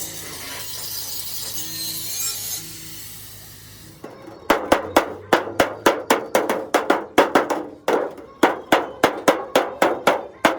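A fast run of hammer blows on metal, about three or four strikes a second, each one ringing briefly. The blows start about four seconds in, after a steady hiss.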